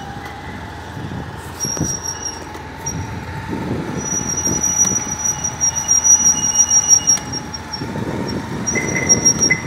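A vehicle riding along a street: steady engine and road noise that swells unevenly, with a thin high whine on and off.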